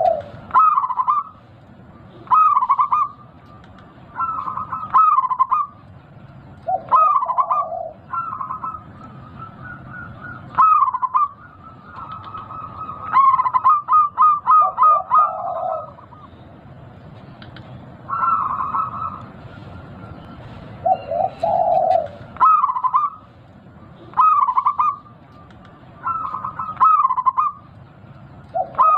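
A local zebra dove (perkutut) with a big voice cooing its song phrases over and over, about one every two seconds, with a quick run of short notes about halfway through.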